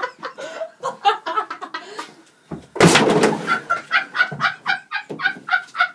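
A wardrobe being smashed: one loud crash about three seconds in, among smaller knocks, followed by a quick run of short, pitched, clucking-like calls.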